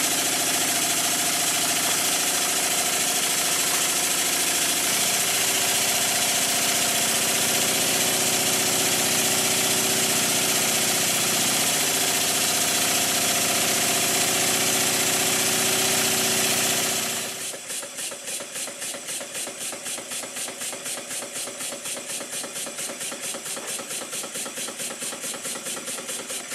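Circa-1896 model steam engine running very fast on compressed air: a loud, steady rush of exhaust air with a held whine. About two-thirds of the way in it drops abruptly to slower running with a distinct, even exhaust beat, starting to knock as its too-thin crank pin gives way.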